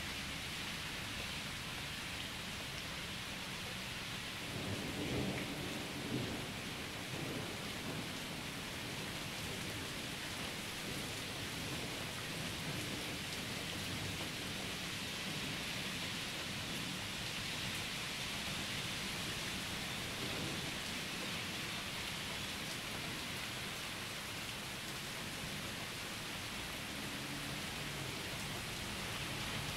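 Steady rain from a thunderstorm, with low rolling thunder underneath that swells briefly about five seconds in.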